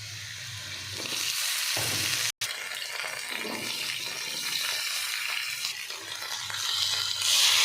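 Food frying in hot oil in a pan: a steady sizzle that breaks off for an instant about two seconds in and grows louder near the end.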